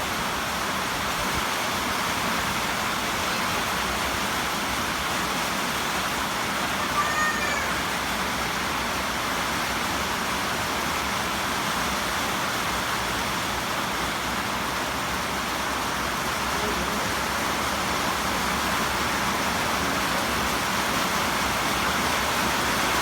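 Steady rushing of floodwater flowing down a rain-swollen wadi, an even noise without a break, with a brief faint chirp about seven seconds in.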